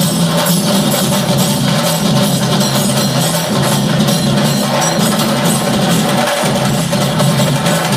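Music with fast, busy percussion throughout.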